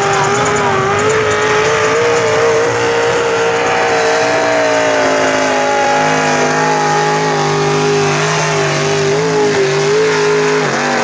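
Lifted mud-bogging pickup truck's engine running hard at a steady high pitch, wavering a little, as the truck drives through deep mud on oversized tires.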